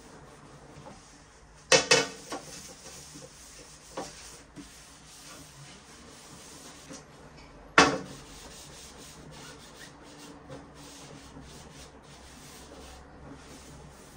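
A sponge rubbing and scrubbing over a ceramic toilet. Sharp clacks stand out above the scrubbing, two close together about two seconds in and a single loud one near eight seconds in, as the plastic toilet lid and seat are handled and raised.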